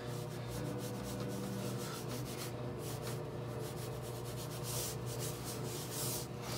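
Colour pencil scratching on newsprint in quick, repeated shading strokes, over a steady low hum.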